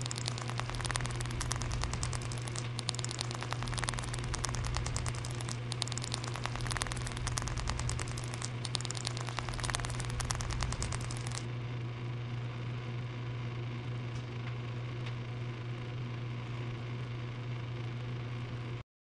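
A steady low electrical hum under dense crackling static; about eleven seconds in the crackle stops, leaving the hum and a faint hiss, which cut off suddenly near the end.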